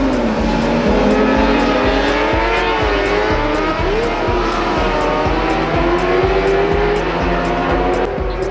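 Racing sidecar engines, their pitch rising and falling. Background music with a steady beat runs underneath.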